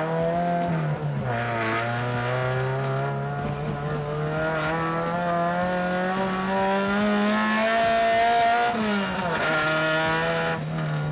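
Race car engine heard from inside the cabin, driven hard: its pitch drops with a gear change about a second in, climbs steadily for several seconds, then falls away sharply near the end.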